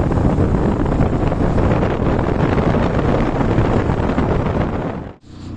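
Heavy wind buffeting the microphone over the rumble of a moving vehicle on the road, cut off abruptly near the end. Right after the cut, a steadier, even engine hum starts.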